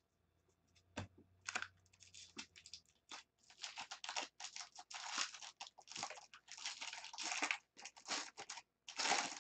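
Foil wrapper of a Bowman Draft Jumbo trading-card pack crinkling and tearing as it is handled and pulled open by hand: an irregular run of crackles, loudest near the end, after a single click about a second in.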